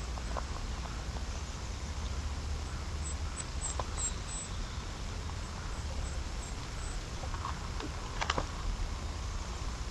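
Bald eagle nest-cam ambience: a steady low rumble with scattered light clicks and rustles of nest sticks as the eaglet moves about, the loudest a short cluster about eight seconds in. A few faint high peeps come about three seconds in.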